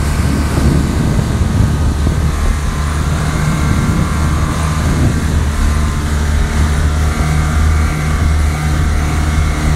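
Jet ski engines running steadily at speed: a constant low drone with the rush of water and spray over it.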